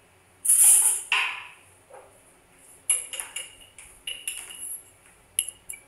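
Kitchen handling as coffee powder is scooped: a loud, brief scrape about half a second in and another just after a second, then light clinks of a metal spoon against a container.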